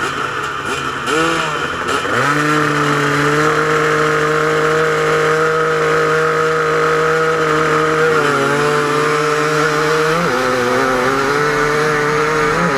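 Two-stroke KTM 250 EXC enduro motorcycle engine revved and held at steady high revs while waiting to start. The revs dip about eight seconds in and rise again about two seconds later, with other bikes' engines running alongside.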